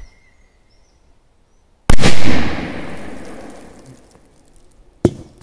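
Black Devil firecracker exploding by a small metal can: one very loud bang about two seconds in, its echo dying away over the next two seconds. A short sharp crack follows near the end.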